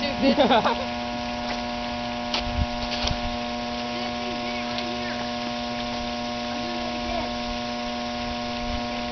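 A steady electrical hum made of several held tones, with faint clicks about two and a half and three seconds in.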